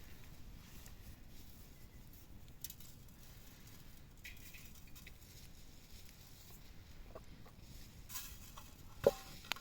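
Faint background with scattered light clicks and taps, and one sharper knock with a brief ring near the end.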